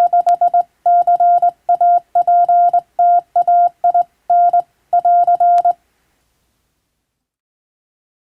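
Morse code sent by hand on a telegraph key: a single steady tone keyed on and off in dots and dashes, grouped into characters, that stops about six seconds in.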